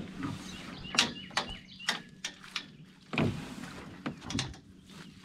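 Sharp knocks and bumps against a small boat's hull and fittings, with a louder burst of rushing noise about three seconds in.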